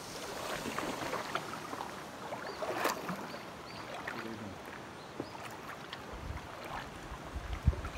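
Packraft paddling on calm river water: soft splashing and dripping from the paddle, with a louder splash about three seconds in. Low bumps and a sharp knock near the end.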